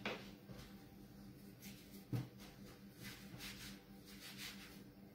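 Faint soft rubbing of hands rolling a strip of shortcrust pastry on a floured wooden board, with a light tap about two seconds in, over a low steady hum.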